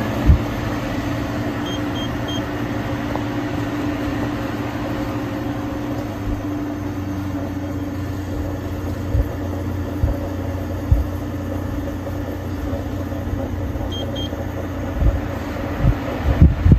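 Window air conditioner running with a steady hum and fan noise. Its control panel beeps three times quickly about two seconds in and twice more near the end, and a few dull low thumps come as the unit is handled.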